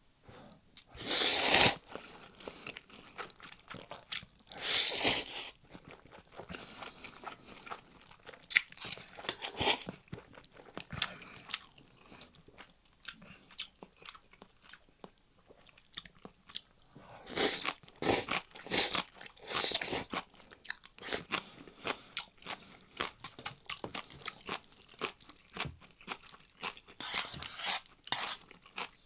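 Close-miked eating of Chapagetti noodles and green onion kimchi: several loud bursts of slurping and biting, with steady small chewing clicks between.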